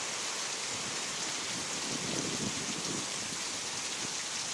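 Heavy rain pouring down in a storm, a steady hiss of the downpour.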